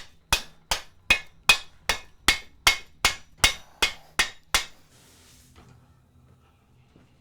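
A blacksmith's hammer striking steel on an anvil in a steady rhythm, about a dozen ringing blows at roughly two and a half a second, stopping about four and a half seconds in. A brief soft hiss follows.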